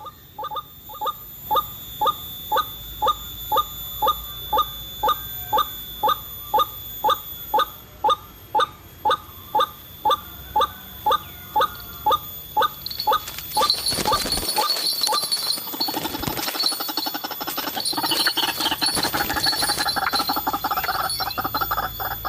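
White-breasted waterhen (ruak-ruak) calls repeating about twice a second, then breaking into a denser, faster run of call notes about halfway through.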